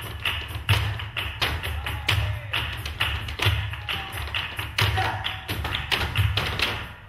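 Flamenco footwork (zapateado) in soleá por bulería rhythm: a group of dancers' shoes striking a wooden stage together in fast, dense volleys of heel and toe taps, over the accompanying music.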